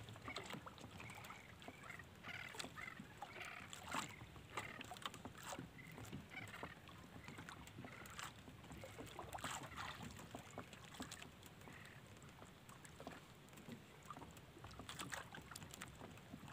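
Faint water lapping against the hull of a small outrigger boat drifting at sea, with light, irregular clicks and knocks scattered throughout.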